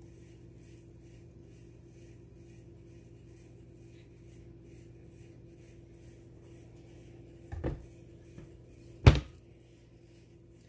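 Two sharp knocks about a second and a half apart near the end, the second much louder, as kitchen things are handled and set down on the counter, over a faint steady hum.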